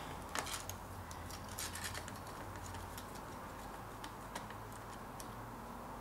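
Faint, scattered small clicks and taps at irregular intervals as hands handle the parts of an opened laptop during disassembly, over a low steady hum.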